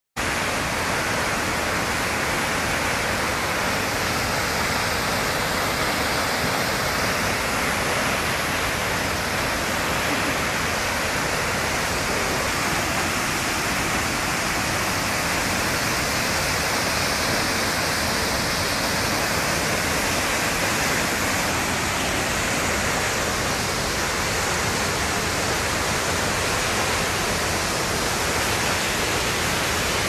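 Tortum Waterfall pouring into its plunge pool: a steady, dense rush of falling water with gentle slow swells.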